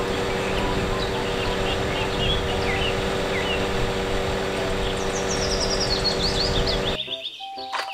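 Truck-mounted aerial work platform running with a steady mechanical hum while its boom is raised, with birds chirping now and then. The hum cuts off abruptly near the end.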